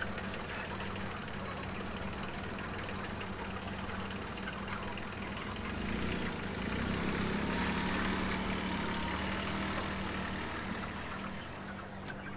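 Steady mechanical hum of a running motor, with a constant low tone over an even rushing noise. It swells slightly about halfway through.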